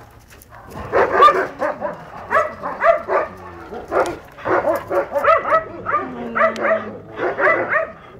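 Dogs yelping and whining in quick, short high-pitched calls, several a second, starting about a second in.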